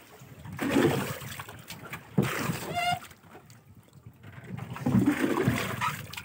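Water being bailed out of the bottom of a wooden boat with a plastic container: a few bursts of scooping and splashing as water is scooped up and tipped overboard, with a sharp knock of the container against the hull about two seconds in.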